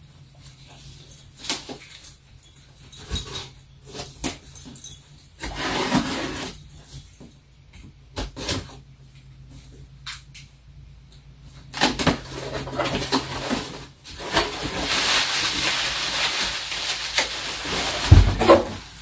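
A dog whimpering, then a cardboard shipping box being opened: a long stretch of scraping and rustling starts about twelve seconds in and ends with a thump as the box inside is pulled out.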